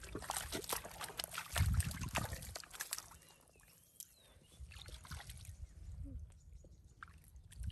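Wet mud squelching and water sloshing as hands and feet work through a tidal mudflat, with crackling clicks over the first few seconds and a dull low thump about a second and a half in.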